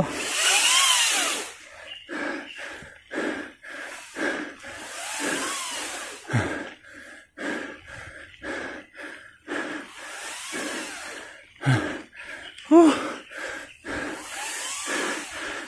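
A cyclist panting hard while climbing a steep hill on a mountain bike, with long hissing exhales about every five seconds and short quick breaths between them.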